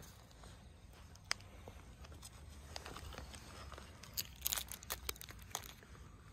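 Close crackling and crinkling noises over a low outdoor rumble: one sharp click a little over a second in, then a quick cluster of crackles and clicks between about four and five and a half seconds in.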